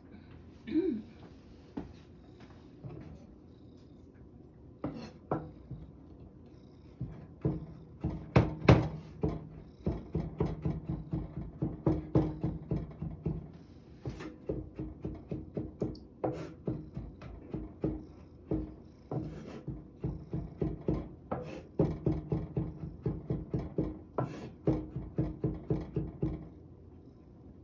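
Kitchen knife chopping carrot on a cutting board: a few scattered cuts, then about seven seconds in a steady run of quick strokes, roughly three a second, that stops shortly before the end.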